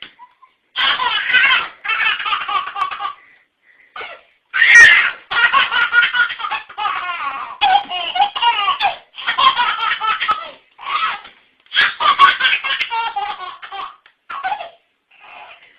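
A baby laughing hard in repeated bursts of belly laughter with short breaks between them.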